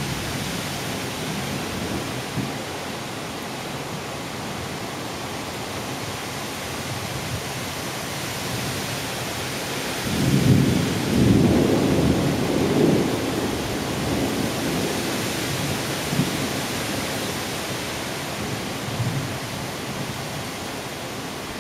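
Heavy thunderstorm rain, a steady hiss, with a low rumble of thunder swelling about ten seconds in and fading over the next few seconds.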